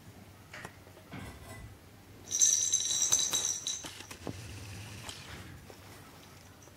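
A small bell inside a plastic roller cat toy jingling as a kitten bats it, with light taps and rattles of the toy on the carpet. The jingle is loudest for about a second and a half starting some two seconds in, then fades to faint rattling.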